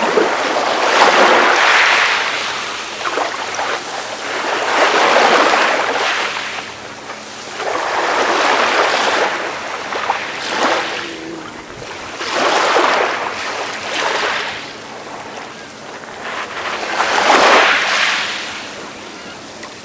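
Calm sea waves washing in, each wash swelling up and fading away, one about every three to four seconds.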